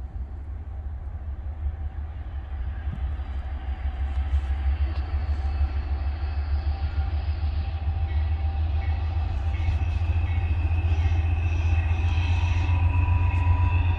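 Approaching Norfolk Southern freight train with diesel locomotives: a low rumble that grows steadily louder as it nears, with steady higher tones coming in over the last few seconds.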